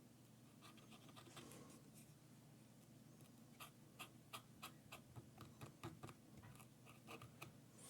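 Near silence with faint, irregular light clicks and ticks, a couple a second, mostly in the second half.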